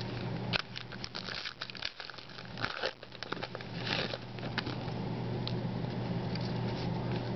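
Foil trading-card pack wrapper crinkling and tearing, a cluster of sharp crackles from about half a second to four and a half seconds in, over a steady low hum.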